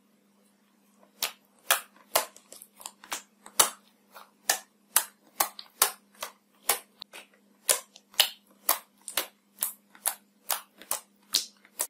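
Metallic green slime poked and pressed with fingertips, popping sharply each time the fingers push air pockets through it. The pops start about a second in and come a little more than two a second.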